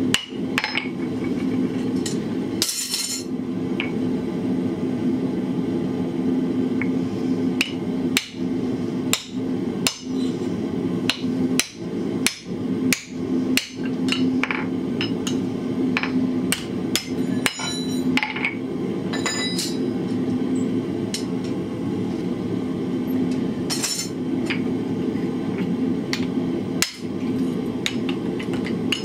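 Hand hammer striking a hot punch driven through a glowing iron bar on an anvil, hot-punching a hole. The blows come irregularly, in a quicker run in the middle, over a steady low hum.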